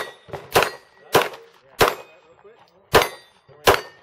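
Handgun shots at a steel plate rack, six in quick succession about every half second with a slightly longer pause before the last two, each followed by the short ring of a steel plate being hit.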